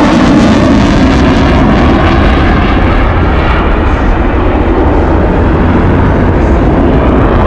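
Boeing EA-18G Growler jet engines at high power during a high-speed pass and break, a loud, steady jet noise with no let-up.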